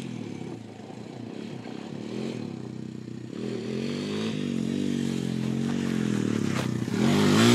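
Honda TRX250EX quad's single-cylinder four-stroke engine revving as the ATV rides closer, growing steadily louder, its pitch rising and falling with the throttle.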